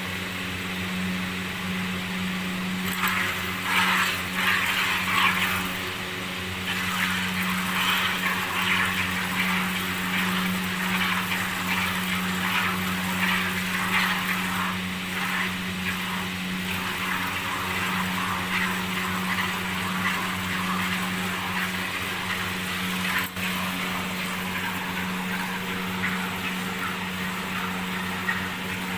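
Cow being milked by hand: jets of milk squirt into a plastic bucket in quick, irregular spurts, busiest in the first half. Under them runs a steady machine hum.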